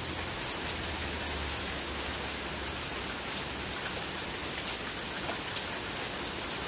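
Heavy rain pouring down in a downpour: a steady hiss, dotted with the sharp ticks of individual drops striking nearby surfaces.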